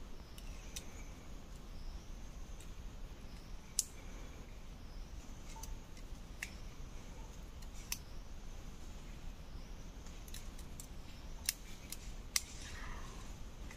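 Irregular small sharp clicks and taps of wooden trap parts (a bent bow frame and a thin stick) being handled and fitted together as a mouse trap is built by hand, about ten of them, spread unevenly.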